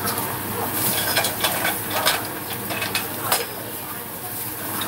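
Abalone sizzling in a steaming frying pan, with a run of sharp metal clinks against the pan, the loudest about two seconds and just over three seconds in.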